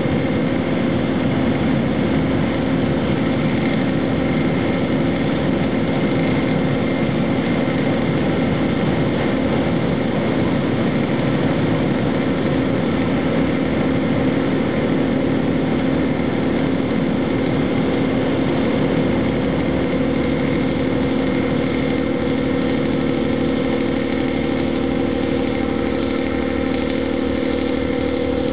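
A steady engine drone with a constant low hum and a faint higher whine, unchanging throughout.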